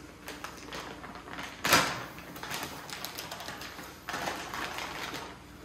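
Plastic bag rustling and crinkling as rubber weather stripping is pulled out of it, with a louder crackle of plastic about two seconds in.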